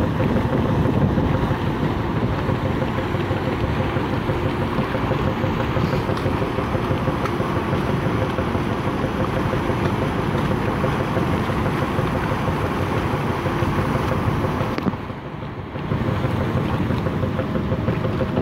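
The engines of the Lake Victoria wagon ferry MV Uhuru run with a faint steady hum as she manoeuvres alongside, her propellers churning the water. Heavy wind buffets the microphone, easing briefly about fifteen seconds in.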